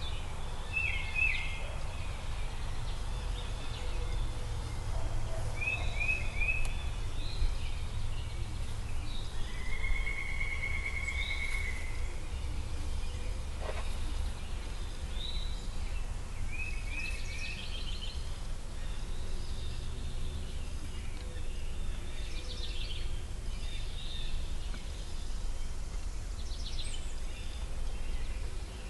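Wild songbirds calling in woodland: short three-note phrases several times, a trill about ten seconds in, and scattered chirps, over a steady low rumble.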